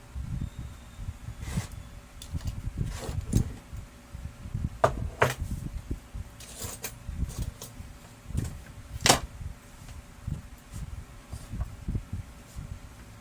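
Irregular clicks, taps and knocks of printer parts being handled during disassembly of the Brother DCP-L2540DW's gear train, over a low rumble of handling. The sharpest click comes about nine seconds in.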